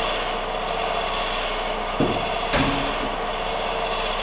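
Shop air compressor running steadily, described as really loud and about ready to blow up. About two seconds in, two sharp knocks sound about half a second apart.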